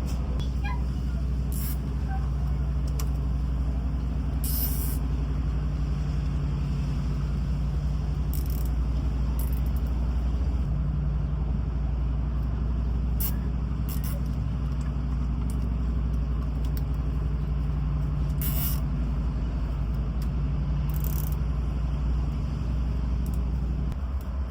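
A steady low mechanical hum runs throughout, with a few short faint hisses.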